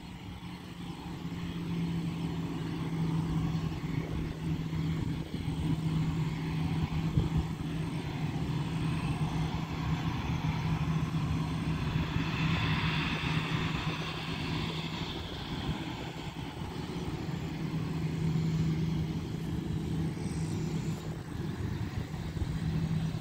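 Twin-engine jet airliner's engines running at low power as it taxis on the runway: a steady low hum and rumble, with a higher engine whine that swells about halfway through and then fades.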